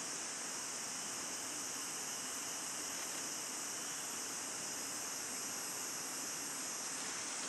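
Steady, high-pitched drone of a forest insect chorus, unbroken and even in level throughout.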